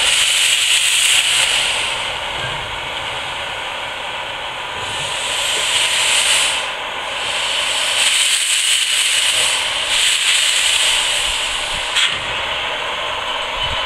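Narrow-gauge steam tank locomotive venting steam from its cylinder drain cocks: a loud hiss that swells and eases several times, breaks off briefly about seven seconds in, with a single sharp click near the end.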